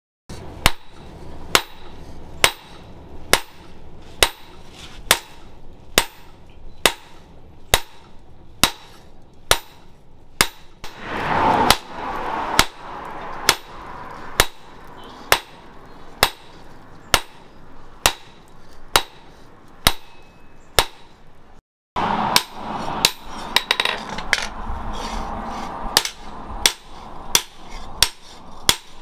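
Hand hammer striking a hot leaf-spring steel cleaver blank on a steel post anvil, with sharp, evenly paced blows a little more than once a second. The strikes break off briefly about two-thirds through, then resume.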